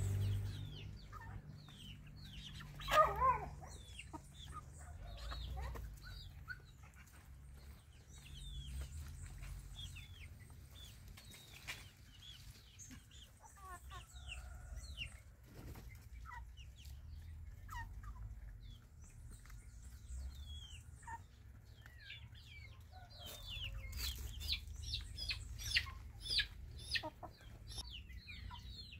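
Young chickens and chicks peeping and clucking as they forage, with many short high peeps throughout. There is one louder call about three seconds in and a busier run of peeps near the end.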